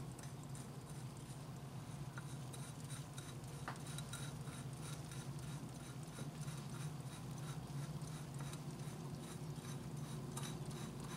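Faint rubbing and light clicks as a gloved hand spins a new Honda oil filter onto its threaded mount, over a steady low hum.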